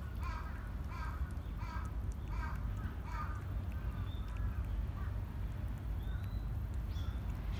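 A crow cawing over and over, about two caws a second, dying away after the first three or four seconds. A steady low rumble runs underneath.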